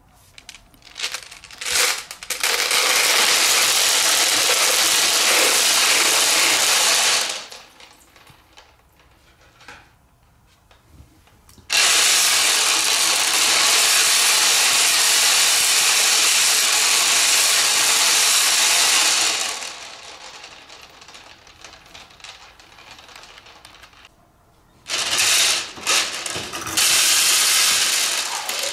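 Glass marbles pouring from a plastic jar into a water-filled glass tank, a steady rattling splash for about five seconds and again for about eight, with scattered clicks of marbles and splashes between the pours and near the end.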